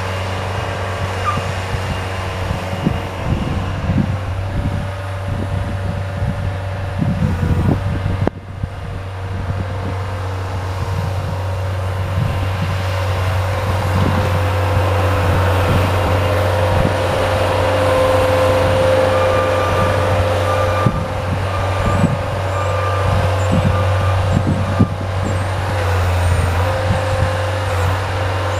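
Engine of a snow-clearing machine running steadily, with a brief dip about eight seconds in and a somewhat louder stretch later on.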